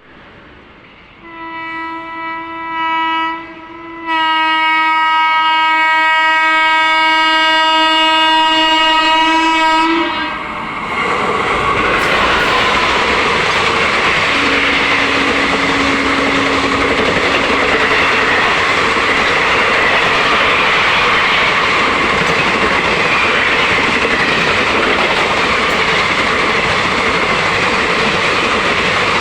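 WAP4 electric locomotive's horn sounding a short blast, then a long one of about six seconds. Then the express passes through at speed: a loud, steady rush and rattle of the coaches' wheels over the rail joints.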